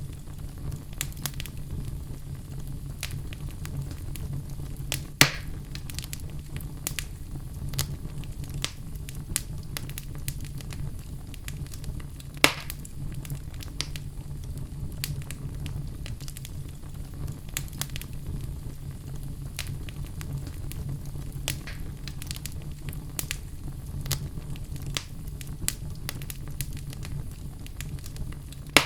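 Wood logs burning in a fireplace: a steady low rumble of flames with frequent sharp crackles, and two louder pops, one about five seconds in and one near the middle.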